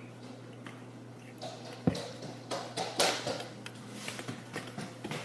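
A mixing utensil knocking and scraping against a bowl as brownie batter is stirred by hand, in irregular clicks with a sharp knock about two seconds in and the loudest clatter about a second later.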